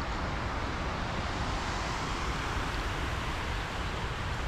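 Steady rush of water pouring over a concrete weir, an even noise with no breaks.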